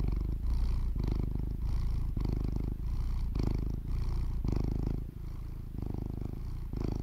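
A cat purring close up: a low rumble that swells and eases about once a second, a little quieter after about five seconds.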